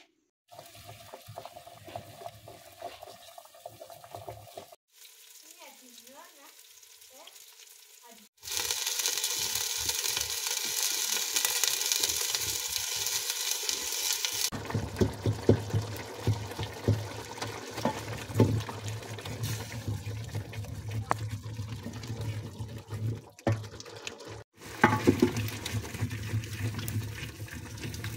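Tomatoes sizzling in hot oil in a metal pot, a loud hiss that starts about a third of the way in and cuts off after about six seconds. Then a wooden spoon stirring thick tomato sauce, scraping and knocking against the pot.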